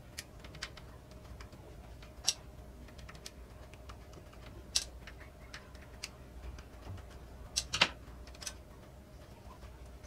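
Sharp plastic clicks and taps from a disassembled air conditioner remote control's plastic case and circuit board being handled, scattered irregularly, the loudest about two, five and eight seconds in.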